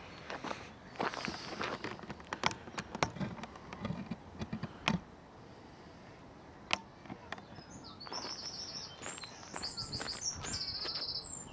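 Scattered sharp knocks and clicks in the first five seconds, then a small songbird singing short trills of rapid, repeated high notes from about eight seconds in.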